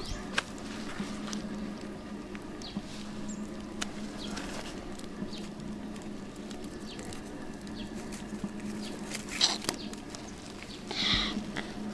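Light rustling of grass and leaves with scattered small clicks and taps as a freshly caught snakehead fish and the plants around it are handled, over a steady low hum; a short louder sound comes near the end.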